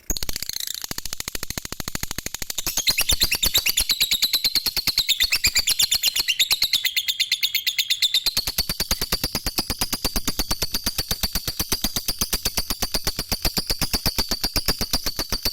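Lovebird in 'ngekek' song: one long, unbroken, very rapid chattering trill of shrill notes. It starts abruptly, dips in pitch midway, then holds steady before cutting off at the end.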